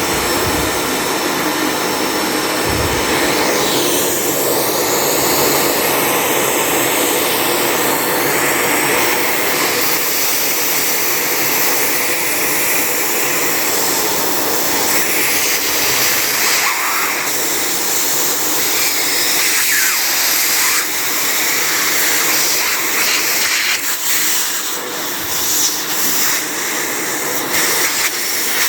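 Vacuum cleaner running steadily as it sucks dust out of a notebook computer, a loud airflow rush with faint whistles that shift in pitch now and then.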